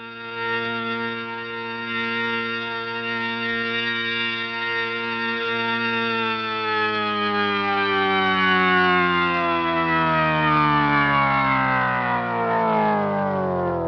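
A sound effect: one sustained, buzzy pitched tone held steady for about six seconds, then sliding slowly down in pitch, the fall speeding up near the end, like a power-down effect.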